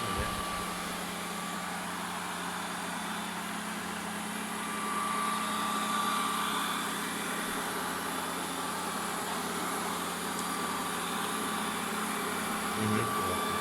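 Ecovacs Deebot 900 robot vacuum cleaner running: a steady hum of its suction fan and brushes with a thin high whine, swelling slightly for a couple of seconds midway.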